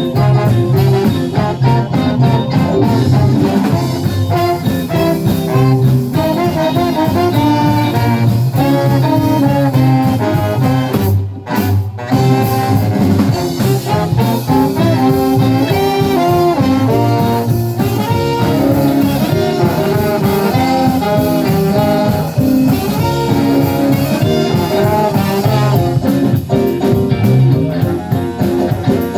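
Live band playing a song, with a short break in the music about eleven seconds in.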